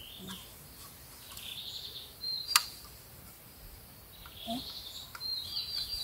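Forest birds calling, short descending whistled notes repeated throughout. A single sharp click about halfway through as the small alcohol burner's parts are handled.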